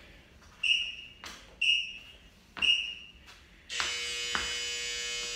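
Tabata interval timer beeping: three short beeps about a second apart, then one long, louder buzzing tone of nearly two seconds, counting down to the start of the next work interval.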